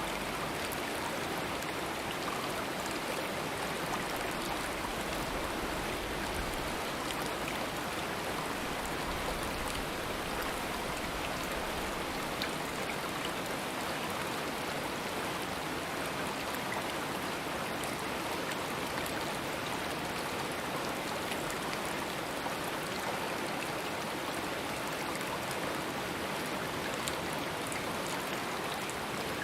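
Stream water running steadily over rocks, a continuous even rush with small splashes and droplets ticking through it.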